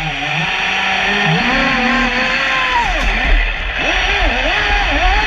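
Traxxas Spartan RC speedboat's brushless electric motor whining, its pitch rising and falling again and again as the throttle is worked. A low rumble runs underneath.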